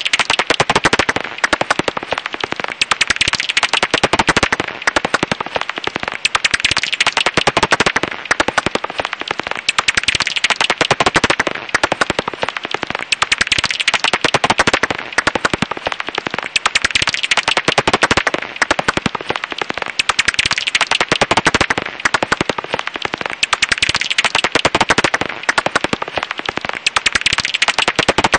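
Japanese house bat (Japanese pipistrelle) calls: a dense, rapid crackle of clicks that swells and eases in waves every few seconds.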